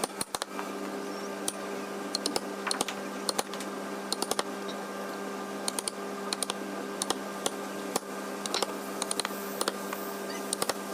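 Light, irregular clicks and taps, often in quick clusters of two to four, from hand work on wooden parts, over a steady electrical hum.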